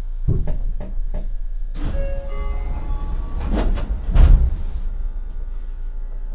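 Tokyu 9000 series train standing at a platform: a few clicks, then a hiss of air as the sliding passenger doors open, ending in two heavy thuds about three and a half and four seconds in.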